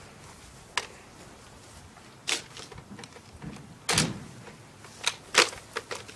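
About half a dozen sharp knocks and clicks at irregular intervals, the loudest about four seconds in and again about five and a half seconds in.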